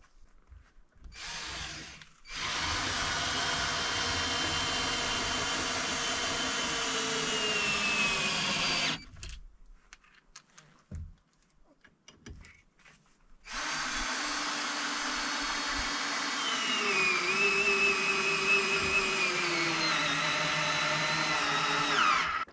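A handheld power tool, drill-like, running under load: a short burst about a second in, then two long runs of about six and nine seconds. Its whine sags in pitch as it works and falls away as each run stops.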